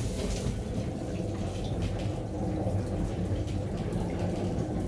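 Shower in a small train bathroom, turned on and running: water sprays from a fixed shower head and splashes on the tiled wall and floor with a steady, even hiss, the water pressure consistent.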